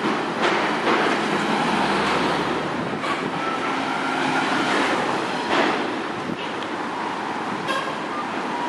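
Bicycle rolling over paving stones, its handlebar-mounted camera picking up a continuous rattle and tyre rumble, with sharper jolts a few times.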